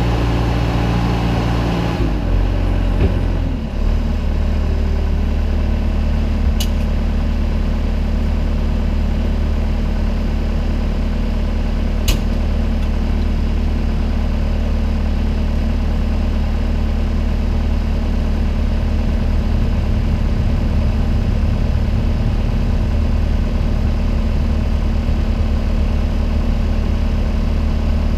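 Bobcat A300 skid steer's diesel engine running at raised revs, then dropping to a steady idle about three and a half seconds in. Two short sharp clicks sound later over the idle.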